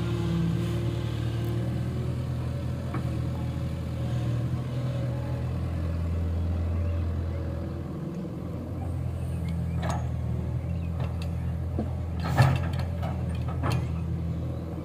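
Diesel engines of a Sonalika 35 RX tractor and a tracked excavator running steadily with a low drone. A few knocks come through, the loudest about twelve seconds in, as the bucket dumps mud into the steel trolley.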